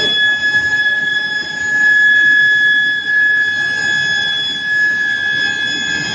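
Induction reheating furnace for square steel bars running, giving a steady high-pitched whine over a constant rushing noise.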